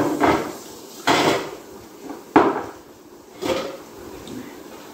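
Metal dinner plates clattering against each other as they are handled and stacked, about five separate knocks, the sharpest about two and a half seconds in.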